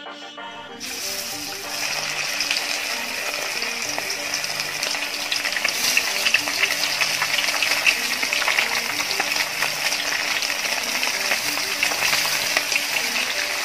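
Fish-sauce-marinated chicken pieces deep-frying in hot vegetable oil in a wok: a steady, loud sizzle that starts about a second in as the chicken goes into the oil and builds over the next second. Light background music plays underneath.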